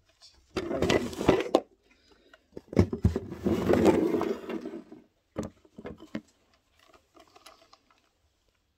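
Packaging being handled: two bursts of crinkling rustle, about a second and then about two seconds long, followed by a few light clicks.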